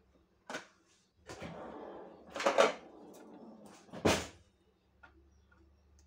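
Handling of a plastic food container and sliced cured ham: rustling for a second or two, then a sharp plastic clack about four seconds in.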